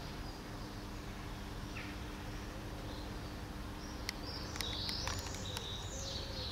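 Small birds chirping and trilling over steady low street hum, the chirps gathering in the second half. A cluster of sharp little clicks about four to five seconds in comes from kittens eating wet food out of a plastic tub.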